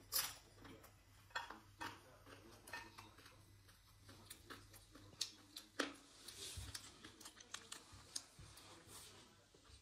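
Faint, scattered clicks and light scrapes of someone eating from a plate, with about a dozen small sharp clicks at irregular times.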